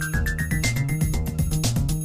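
Background music: a run of quick notes climbing step by step in pitch over a steady beat, levelling off on a high note about a third of the way in.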